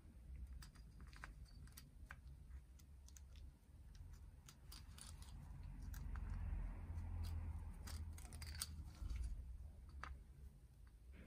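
Faint, scattered small metallic clicks of piston rings on an aluminium piston being handled and worked in the ring grooves, with a soft rubbing swell of gloved hands on the piston in the middle.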